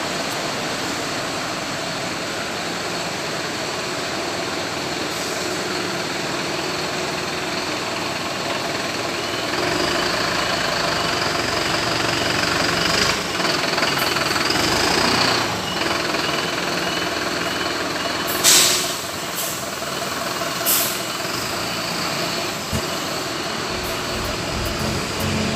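Diesel bus running at idle, with a high whine swelling for a few seconds around the middle and two short, sharp hisses of air about two seconds apart near the end.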